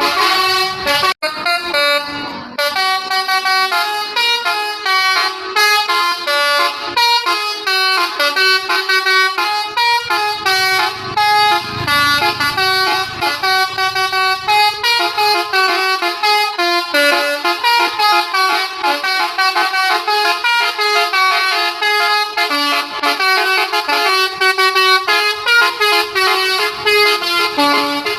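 Bus telolet horn, a set of electric horn trumpets, playing a rapid tune of stepped notes over and over, with a brief break about a second in.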